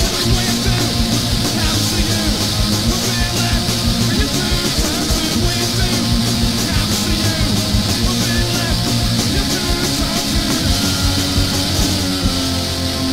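UK hardcore punk song: fast, even drumming under guitar and bass. About twelve seconds in the drums drop out, leaving the guitar.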